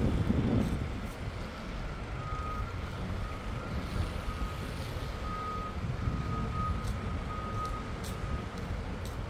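City street traffic rumbling steadily, with a vehicle's reversing alarm beeping over and over at one steady pitch. A low rumble swells briefly in the first second.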